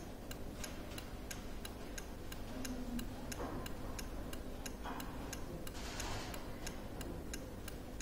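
Turn signal flasher relay clicking steadily, about three clicks a second, as it switches the hazard warning lamps on and off: the hazard circuit is working.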